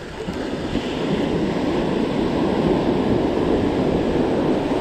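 Ocean surf breaking and foaming up the sand in a steady wash that swells about a second in, with some wind on the microphone.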